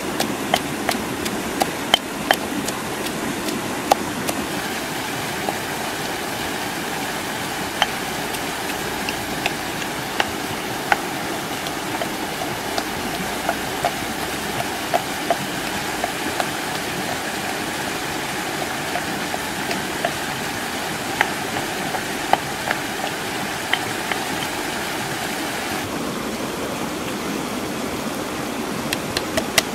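A rushing stream running steadily, with scattered sharp knocks of a stone pestle pounding chilies and tomato in a stone mortar.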